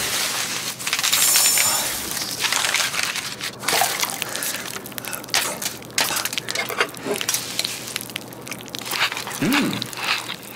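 Rustling, crinkling and clicking of packing material and a paper packet being handled, with a hissing, pouring-like stretch about a second in. Near the end there is a short hummed "mmm".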